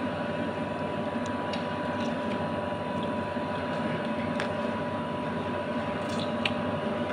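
Steady electrical hum of a running kitchen appliance, with a few faint clicks and soft squishy sounds of food being picked up and eaten.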